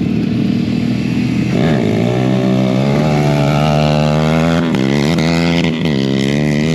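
An off-road vehicle engine revving: its pitch climbs about a second and a half in, holds high, then dips and climbs back twice near the end.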